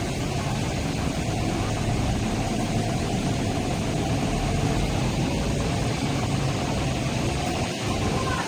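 Steady low noise of electric trains at a station platform, with a constant hiss over it.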